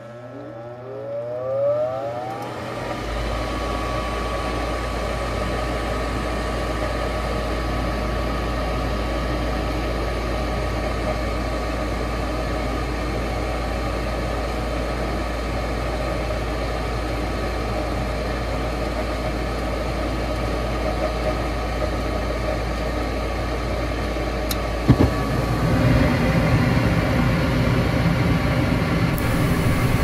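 Gas furnace starting a heating cycle: the draft-inducer motor spins up with a rising whine over the first two seconds, then runs with a steady whine and hum. About 25 seconds in there is a sharp click, and a louder rushing noise follows as the burners light off the new hot-surface igniter.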